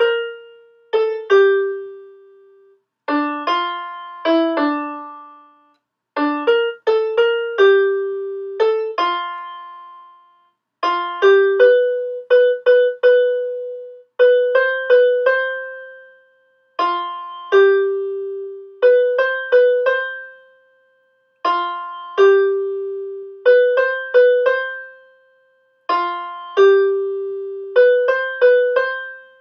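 Background music: a simple solo keyboard melody played in short phrases of a few notes, each note fading away, with brief pauses between the phrases.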